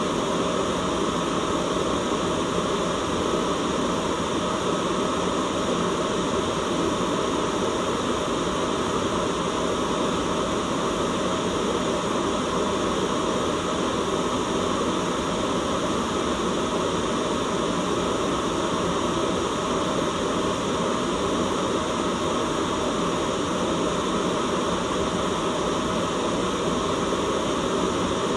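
Steady, unchanging white noise: an even hiss with most of its weight in the low middle, no breaks or changes.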